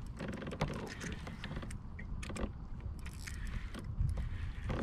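Irregular clicking and rattling of fishing tackle being handled, a reel and a metal spoon lure, over a steady low rumble.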